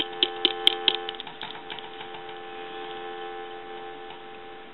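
Steady North American telephone dial tone, the two-note hum of 350 and 440 Hz, heard over the line. Light taps on the handset, picked up by its newly fitted transmitter, come about four a second in the first second or so and then stop. The tone cuts off at the end.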